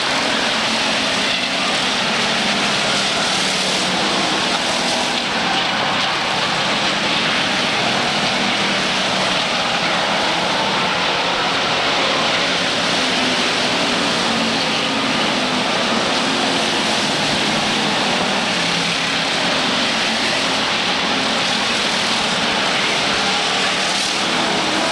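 A pack of Pure Stock race cars running at speed around a short paved oval, their engines blending into one loud, steady drone.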